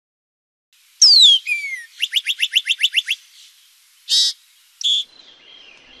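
Songbird calls: starting about a second in, a sharp whistle falls steeply in pitch and is followed by a shorter falling note, then a rapid trill of about nine notes. Two short, harsher calls come a second or so later.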